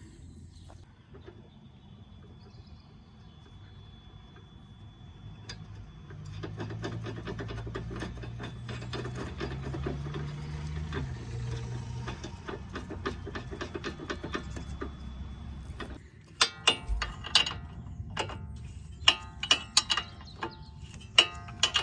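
Ratchet wrench clicking as the top nut of a new drop link (anti-roll bar link) is run on and tightened: a quiet start, then a long stretch of quick, dense clicking, then slower separate ringing clicks about once a second near the end.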